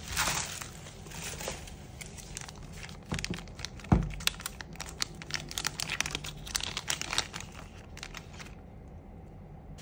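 Clear plastic packaging bag crinkling and rustling as it is handled, with a single knock on the table about four seconds in. The crinkling stops near the end.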